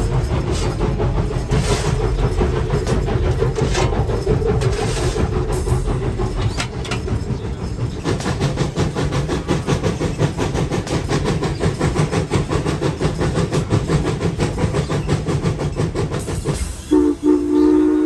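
Steam locomotive from 1906 running along the line, heard up close from on board: a rapid, even beat of strokes over a steady rumble. About a second before the end its whistle sounds, a chord of several notes held briefly.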